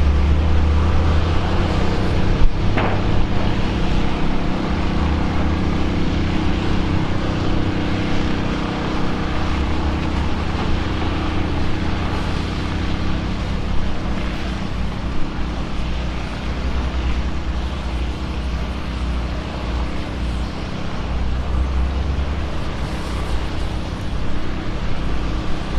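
A vehicle engine idling steadily, with a low rumble that swells and fades and a single sharp click about two and a half seconds in.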